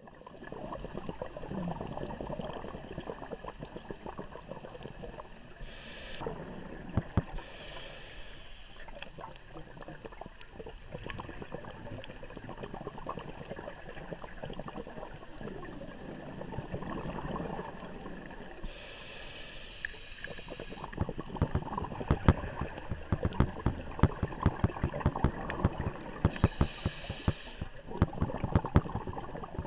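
Scuba diver's breathing heard underwater: short hissing inhalations through the regulator a few times, with bubbling exhalations between them. A crackle of sharp clicks grows dense in the last third.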